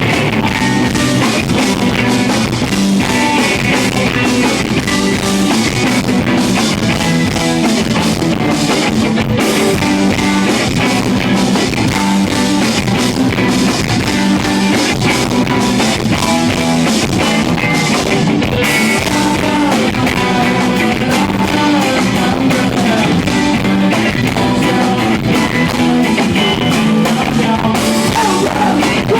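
Live rock band playing loud with electric guitars and a drum kit, with singing, recorded on an iPod's built-in microphone.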